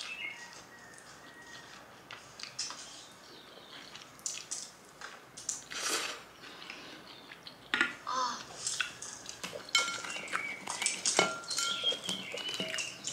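Chopsticks and a fork tapping and clinking against a ceramic bowl and plate while eating, in short scattered clicks and knocks.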